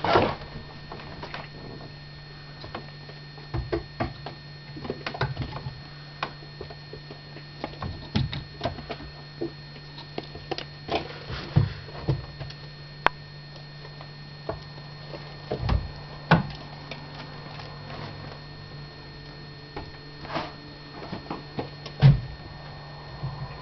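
Irregular light taps and knocks, with small scrabbling sounds, as a kitten bats and chases a ball around its play castle. Two sharper knocks stand out, about 16 and 22 seconds in.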